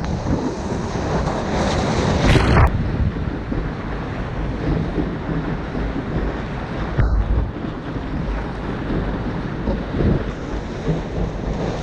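Wind buffeting the microphone over the wash of ocean surf, with a louder surge about two seconds in.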